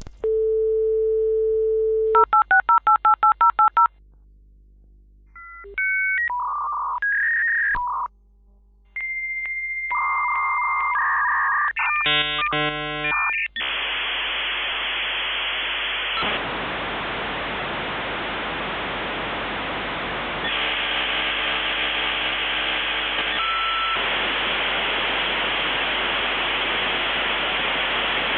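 Dial-up modem connecting: a steady dial tone, then about a dozen quick touch-tone dialing beeps. After a short lull come answer tones and shifting handshake beeps and chirps, then a long loud hiss of scrambled data noise for the second half.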